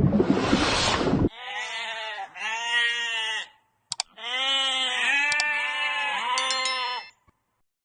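A noisy rush that cuts off suddenly about a second in, then an animal bleating: two short wavering calls, a click, and one longer quavering call.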